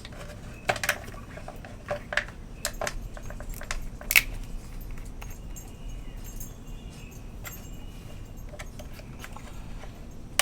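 Handling clatter of plastic bottles: a run of sharp clicks and knocks in the first four seconds, the loudest about four seconds in, then lighter scattered taps. These are the oil bottles and a water bottle used as a makeshift funnel being readied to pour oil into the motorcycle.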